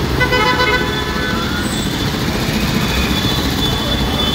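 Steady road-traffic noise of engines running at a busy street junction. A vehicle horn sounds briefly near the start.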